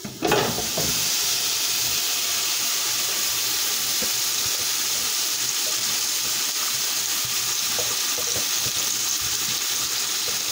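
Marinated chicken drumsticks hitting a hot pot of fried onions and spices and frying: a loud sizzle that starts abruptly just after the start and then holds as a steady hiss.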